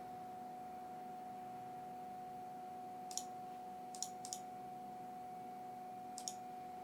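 Four faint, sharp computer mouse clicks, one about three seconds in, a quick pair about a second later and one near the end, as devices are toggled on in the lighting-sync software. A faint steady hum runs underneath.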